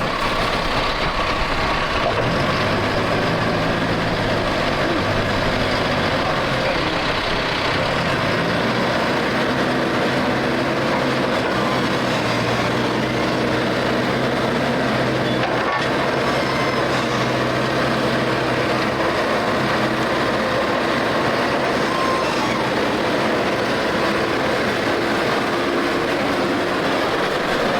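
Heavy vehicle's engine running under load as it tries to drive out of deep mud, its pitch stepping up and down a few times.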